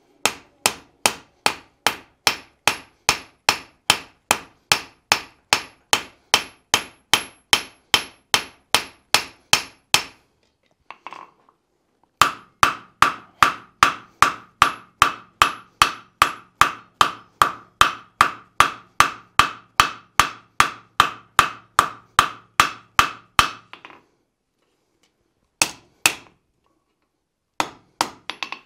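Hand hammer striking a red-hot steel bar on an anvil in long, even runs of about three blows a second, each blow leaving a high metallic ring. The hammering stops briefly about ten seconds in and again a little before the end. The bar is the steel strip being forged for the axe's cutting edge.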